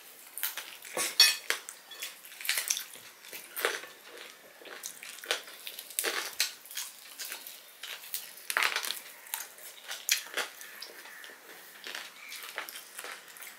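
Metal fork clinking and scraping on ceramic dinner plates in short, irregular clicks, with eating and chewing sounds as two people eat rice.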